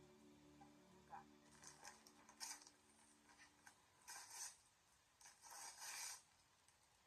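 Faint rustling of gift packaging being handled, in a few short bursts, as background music fades out in the first second or so.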